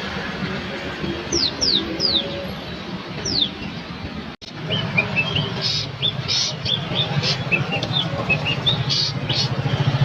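Caged songbirds calling: four quick whistles sliding downward, then, after a brief dropout about four seconds in, a run of short chirps and tweets over a steady low hum.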